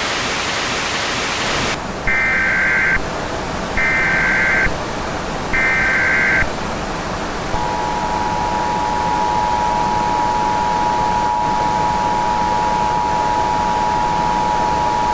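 Emergency Alert System tones over static hiss. First come three short, buzzy SAME header data bursts about a second apart, then, about halfway in, the steady two-tone EAS attention signal (853 and 960 Hz) starts and holds.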